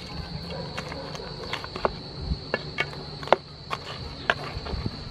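A wooden spatula stirring and turning whole river prawns in a pan of sauce, with irregular sharp clicks and knocks of spatula and shells against the pan. A steady high insect drone runs underneath.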